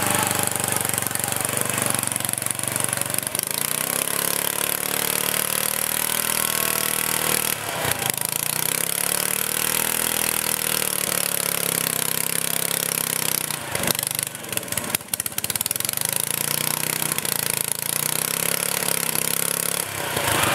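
Modified riding lawn mower's engine, exhausting through an open upright stack, labouring through deep mud. Its revs swell up and sag back down in about three long surges, with brief drops in between as it bogs.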